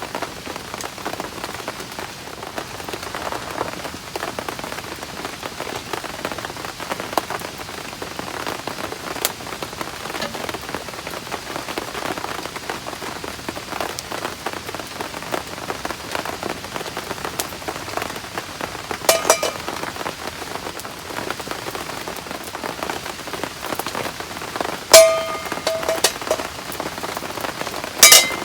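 Heavy rain falling steadily, with a few sharp clicks that ring briefly, like metal knocking, at about 19, 25 and 28 seconds, the one at about 25 seconds the loudest.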